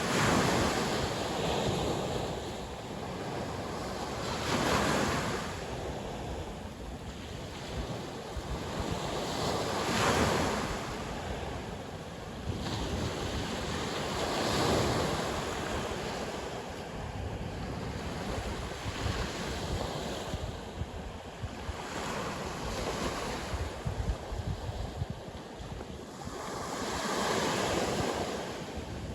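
Winter sea waves breaking and washing on the shore, each wave a surge of rushing noise, several seconds apart. Wind gusts buffet the microphone with low rumbles, most in the second half.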